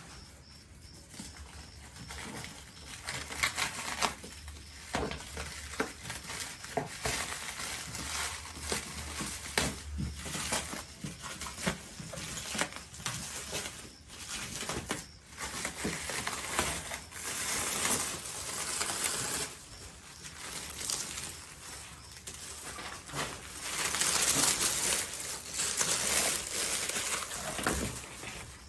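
Plastic stretch wrap crinkling and rustling as it is pulled and peeled off a hard-shell rooftop tent, in uneven crackles that get louder about 24 seconds in.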